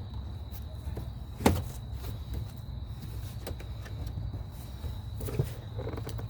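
Plastic interior door panel of a pickup being pried off its clips: scattered clicks and knocks, with one sharp snap about a second and a half in as a retaining clip pops loose.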